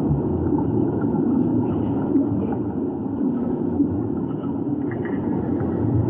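Steady low underwater rumble picked up by a submerged camera, with no distinct events.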